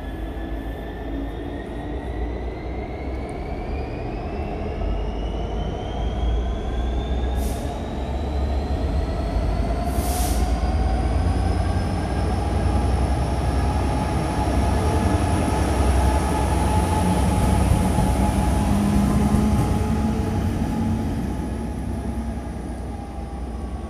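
GBRf Class 66 diesel locomotive running light, its two-stroke EMD V12 engine running under load as it pulls slowly through the station. A high whine rises in pitch over the first half and holds, and the locomotive grows louder as it passes, loudest about three quarters of the way through.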